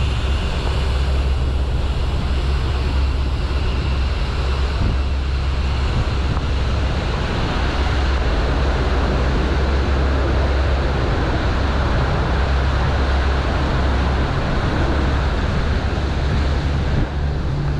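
Small river cruise boat's engine running with a steady low drone, mixed with wind noise on the microphone and water rushing past the hull as the boat moves.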